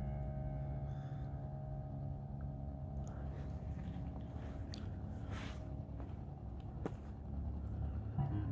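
A pause between songs: a low steady rumble with a few faint clicks and crackles in the middle, and no music until the very end.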